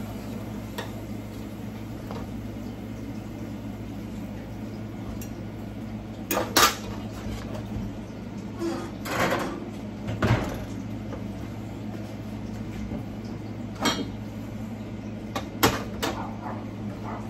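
Metal fork and frying pan clinking and clattering on a gas stove top as fried plantain slices are lifted out and the pan is set aside: a handful of separate knocks and clanks, a few of them sharp, over a steady low hum.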